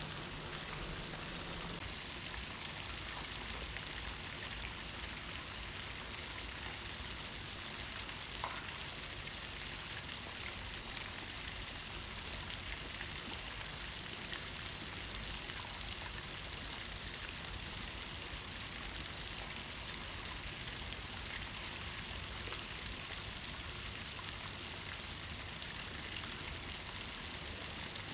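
Steady, even hiss of outdoor background noise, with faint, very high chirping in short runs and one sharp click about eight seconds in.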